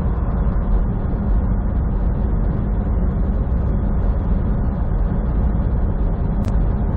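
Steady drone of a semi truck's engine and tyre noise heard inside the cab at highway speed, with a single brief click about six and a half seconds in.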